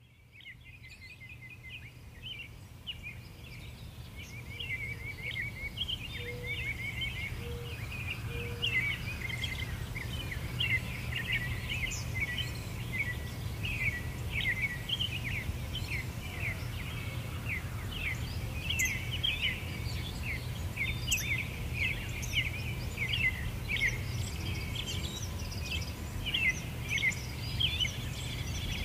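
Many small birds chirping and twittering rapidly over a steady low rumble, fading in from silence over the first few seconds.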